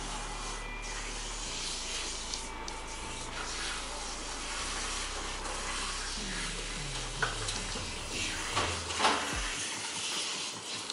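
Handheld grooming-tub shower head spraying water onto a poodle's soapy coat while it is rinsed: a steady rush of water, briefly louder about 7 and 9 seconds in.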